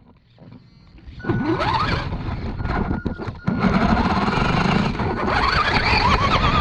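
Radio-controlled monster truck driving: its electric motor whines and rises in pitch as it speeds up, over a haze of tyre and ground noise. The sound starts about a second in, after a near-silent moment.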